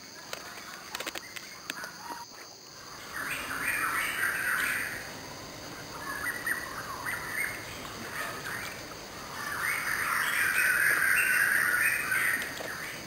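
Birds chirping in bursts, loudest about four seconds in and again from about ten to twelve seconds, over a steady high-pitched drone. A few short knocks come in the first couple of seconds.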